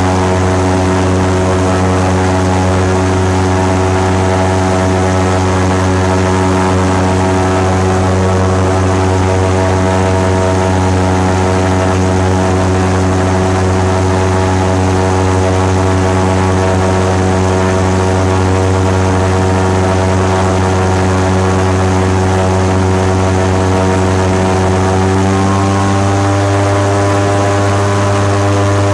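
Airboat's engine and large air propeller running at speed: a loud, steady drone. About three seconds before the end the pitch shifts up a little as the throttle changes.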